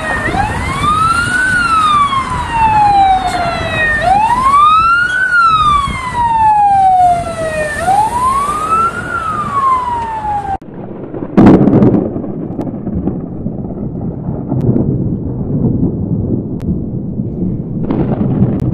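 An emergency vehicle siren wails, rising and falling three times, each cycle about four seconds long, then cuts off abruptly. About a second later comes a sharp clap of thunder with rolling rumble, and another clap near the end.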